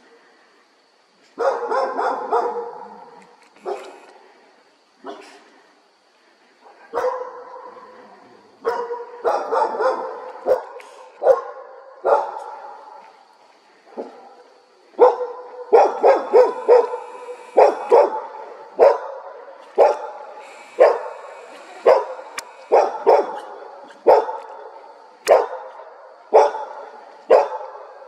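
A dog barking over and over: a few scattered barks and short runs in the first half, then steady barking about once or twice a second for the rest.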